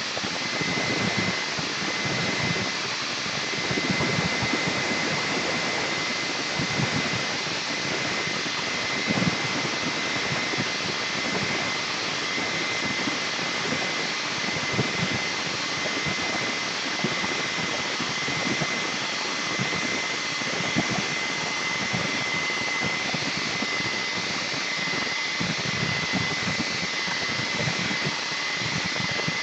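Handheld hair dryer running steadily, a constant blowing rush with a thin high whine, used to dry a freshly sprayed coat of leather dye.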